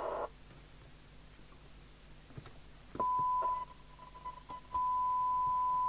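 A steady test tone from the Sapphire X4000 CB radio's speaker cuts in about three seconds in, stutters on and off briefly, then holds steady: the squelch opening at its threshold as the test signal is brought up.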